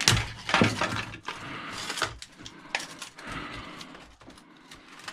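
Knocks and scraping of plastic and metal parts being handled while a plastic appliance housing is pulled apart. There is a sharp knock at the start and a few more in the first three seconds, with rustling and scraping between them.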